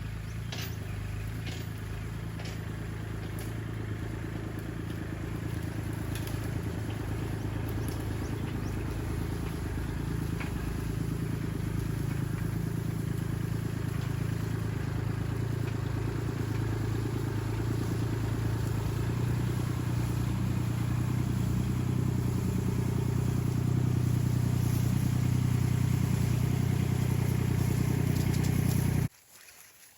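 Wood chipper engine running steadily, growing gradually louder, then stopping abruptly near the end.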